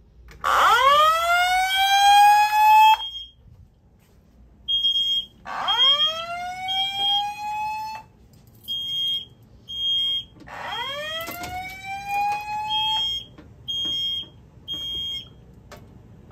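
Fire alarm evacuation system sounding a whoop tone through a voice evac speaker: three rising whoops about two seconds apart. Between the whoops, a Simplex GX90 mini horn gives short, high-pitched beeps in a steady repeating pattern.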